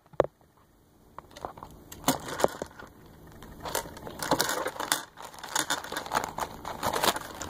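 Real seashells clicking and clattering together as they are gathered up, in clusters of quick sharp clicks that start about a second in and grow busier toward the end.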